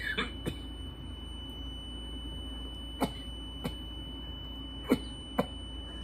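Several short coughs, spaced a second or two apart, from a person's throat after a big dab hit. Under them is a steady high-pitched tone from the Dablamp e-rig's circuitry.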